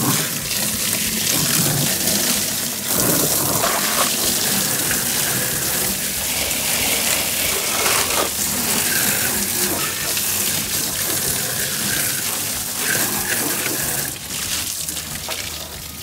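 Water running and splashing onto the plastic inner walls of an old refrigerator as it is rinsed out: a steady rush that grows louder about three seconds in and eases a little near the end.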